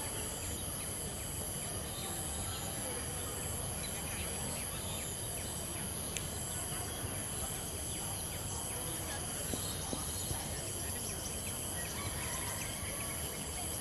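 Steady outdoor ambience under a high insect drone of several steady shrill bands, one pulsing slowly and regularly.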